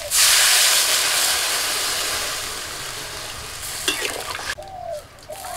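Water poured into a kadai of vegetables frying in hot mustard oil, hitting the oil with a sudden loud sizzle that slowly dies down over about four seconds.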